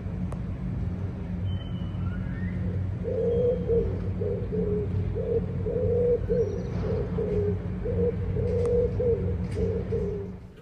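Pigeon cooing, a run of short low coos from about three seconds in until near the end, over a steady low hum.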